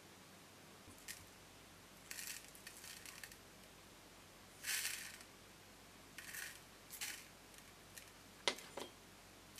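Small, hard clay rice grains rattling as they are tipped from a metal spoon into a miniature wok, in several short spills, with a few sharp clicks, the two loudest near the end.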